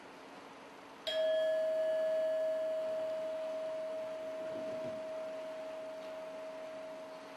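A bell-like metal percussion instrument struck once about a second in, ringing with a clear pitched tone that fades slowly over several seconds, over a faint steady low hum.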